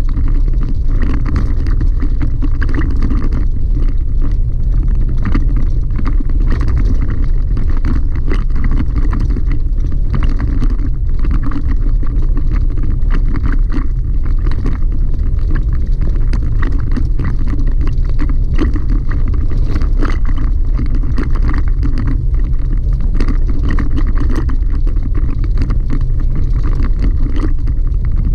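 Chevy Colorado ZR2 pickup driving on a gravel dirt road, heard from inside the cab: a steady, loud low rumble of tyres on loose gravel with a constant patter of small knocks and rattles.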